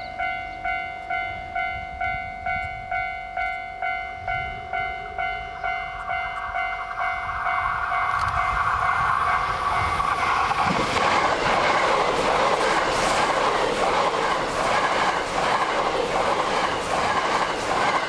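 Level-crossing warning bell dinging about two and a half times a second. Then a white limited express electric train approaches and passes at speed, its loud rushing wheel-and-rail noise drowning the bell from about ten seconds in until near the end.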